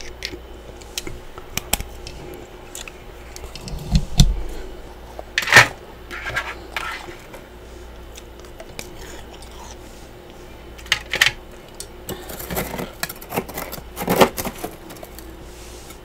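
Chunks of freezer frost crunching and clinking close to the microphone: scattered sharp clicks with louder crunches about four, five and a half, eleven and fourteen seconds in.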